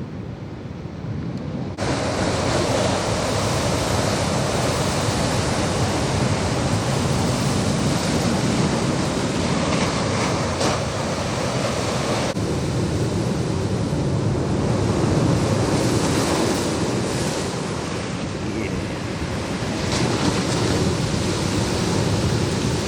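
Heavy ocean surf breaking and rushing in as a steady loud roar of water, swelling and easing, which gets suddenly louder about two seconds in.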